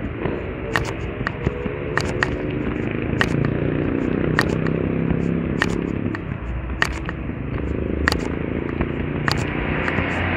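A motor vehicle's engine running, with low noise under it and frequent sharp crackling clicks scattered throughout.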